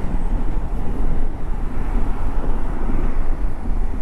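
Motorcycle being ridden along the road, its engine running steadily under a heavy, even rush of wind on the microphone.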